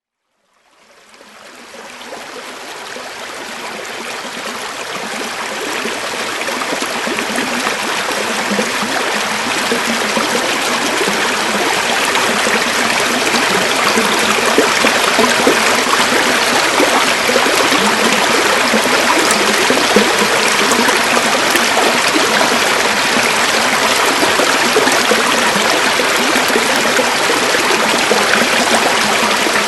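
River water flowing steadily, fading in over the first several seconds and then holding at a constant level.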